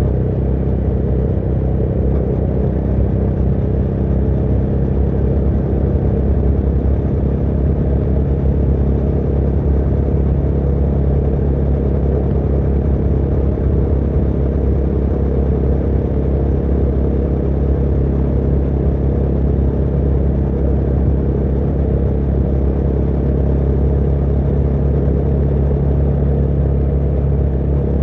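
Motorcycle engine running steadily while riding at an even speed, a constant low note with no gear changes or revving.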